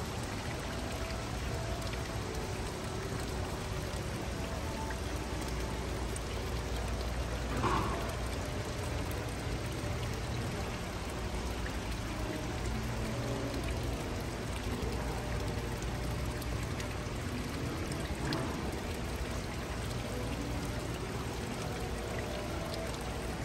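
Steady rush of running water, with one brief louder swell about eight seconds in.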